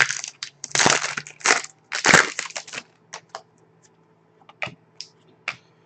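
2011-12 Panini Elite hockey cards being flipped through and slid off the pack by hand: a run of rustling, scraping swishes for about three seconds, then a few scattered light clicks and flicks.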